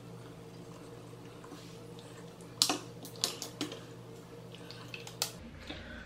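A few small sharp clicks and taps, three close together around three seconds in and one more near five seconds, over a faint steady hum: a lipstick and its cap, and a compact mirror, being handled.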